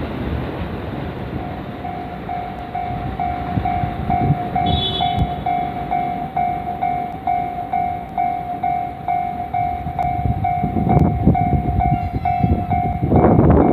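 Japanese railway level crossing's electronic warning bell starts about a second in, a single pitched ding repeating about two and a half times a second over a steady background rumble. Near the end a train approaches and its running noise swells up loudly under the bell.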